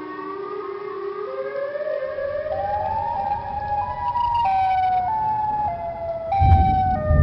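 Siren sound effect: a wailing tone that climbs in steps for about four seconds, then steps back down. A low rumble builds underneath and grows louder near the end.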